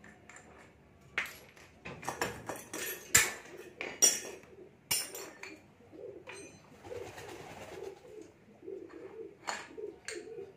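Metal clinks and knocks of wrenches and CVT parts as the front drive pulley of a Honda Beat scooter is unbolted and pulled off, loudest in the first half. Through the second half, a bird coos over and over in the background.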